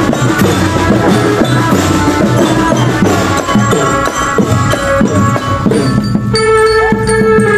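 Marching drum band playing: drums beating steadily, with a pitched melody over them that comes through more clearly near the end.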